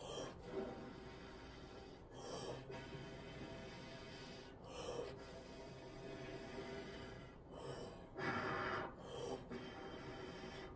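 Didgeridoo droning with steady overtones, broken every two seconds or so by short rushes of breath from the player, the strongest about eight seconds in.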